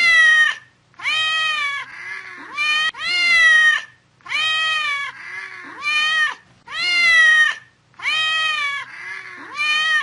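Domestic cat meowing over and over: about nine clear meows, each rising and then falling in pitch, with quieter mews in between.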